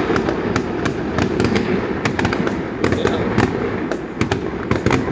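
Fireworks crackling, with many sharp, irregular cracks several times a second over a dense, steady low rumble.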